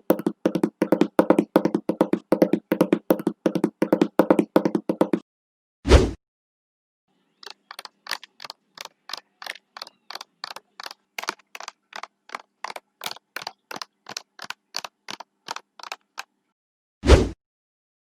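Horse hoofbeats: a fast, heavy galloping rhythm for about five seconds, then a single loud crack. From about seven seconds in, lighter and more evenly spaced hoofbeats at about three a second, then another loud crack near the end.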